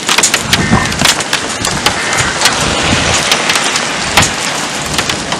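Heavy rain beating on a vehicle during a tornado-producing storm: a steady hiss with many sharp, irregular taps of drops striking.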